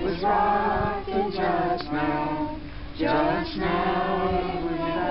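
A group of people singing together with no instruments, several voices holding long notes in phrases with a short break about halfway through.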